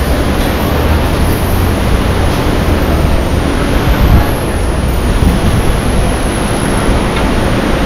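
Loud, steady street traffic noise, a continuous rumble of passing vehicles.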